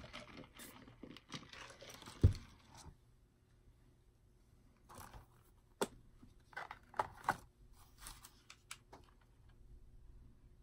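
Light handling noises of plastic cups and plastic table sheeting: rustling and small clicks, with one louder knock about two seconds in and a few sharp clicks later.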